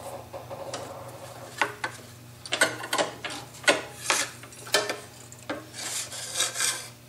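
Thin cut wooden workpiece and small cut-out wood pieces sliding and scraping across a scroll saw's metal table, in a string of short rubbing strokes with light knocks of wood.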